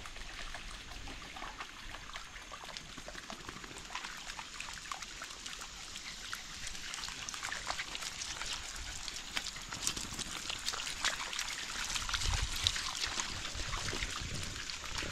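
Shallow creek water trickling over stones while dogs wade and splash through it, with many small scattered splashes and clicks.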